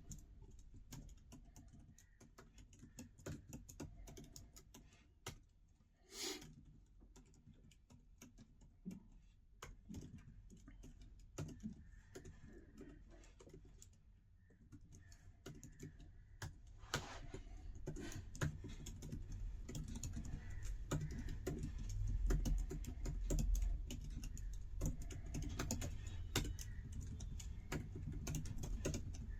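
Continuous typing on an Apple MacBook Pro 14-inch scissor-switch keyboard, a dense irregular patter of key clicks. The typing is lighter for the first half, with one louder knock about six seconds in, then grows louder and busier.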